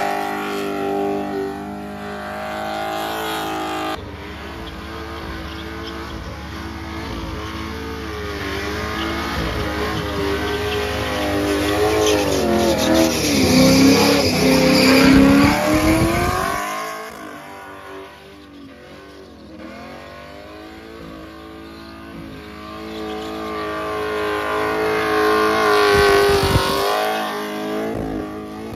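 Car doing a burnout: the engine is held at high revs with the rear tyres spinning on the bitumen. The revs swell and waver to a peak about halfway through, drop away suddenly, then build again near the end.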